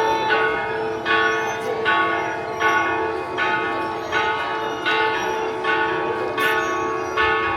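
Church bell struck over and over at an even pace, about one stroke every three-quarters of a second, each stroke ringing on over a steady hum from the earlier strokes.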